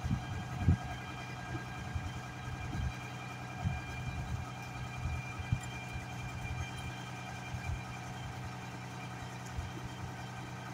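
A US Jetting 4018 sewer jetter running with a steady engine-and-pump hum and a fixed whine. A few low bumps come in the first second or so.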